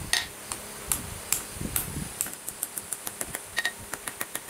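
A small hammer tapping a brass ring on a steel anvil plate: a few single sharp taps, then from about two seconds in a quick, even run of light taps at roughly six a second.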